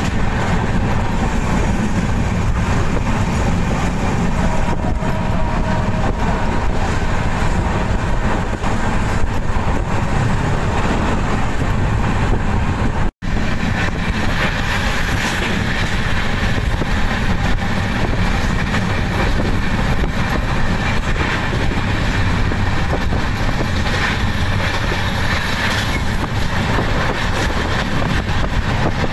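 Steady running noise of an Indian express train at speed, heard from inside a general-class coach by the window: the rumble and rattle of the coach running on the rails. The sound cuts out for an instant about halfway through.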